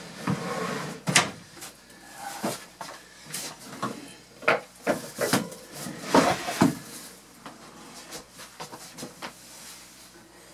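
Wooden trim being fitted and tapped into place by hand: a run of irregular knocks and taps, loudest through the middle, trailing off into light ticks near the end.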